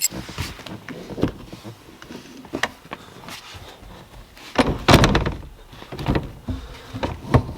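Several knocks and clunks from handling the car's seat and interior, with a heavier thud about five seconds in.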